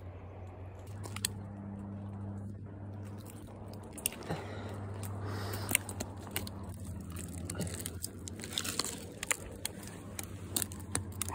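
A person climbing a pine tree: bark crunching and scraping under hands, shoes and clothing, with many sharp clicks and snaps that come more often in the second half.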